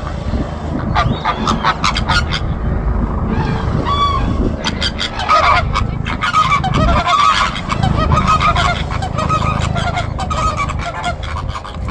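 A flock of flamingos honking: many short, nasal goose-like calls, sparse at first and crowding together from about five seconds in. The birds are calling in reaction to a helicopter, and a steady low rumble runs under them.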